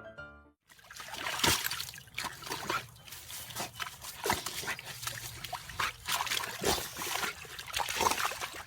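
Dog splashing and sloshing at water, with irregular wet slaps several times a second.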